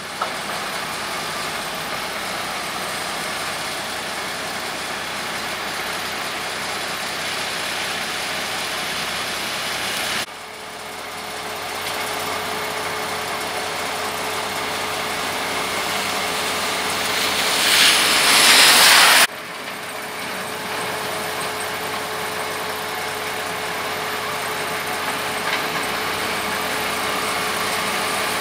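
Snow-clearing machinery running: the engines of a rotary snowblower truck and a wheel loader with a plow blade make a steady drone with a faint steady whine. A louder rushing noise swells about seventeen seconds in and stops suddenly a couple of seconds later.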